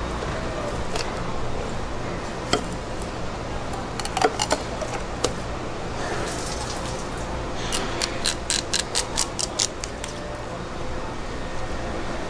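A kitchen knife clicking and tapping against a plastic cutting board as a salmon side is trimmed, with scattered sharp clicks and a quick run of about ten, roughly five a second, a little past the middle. A steady low hum runs underneath.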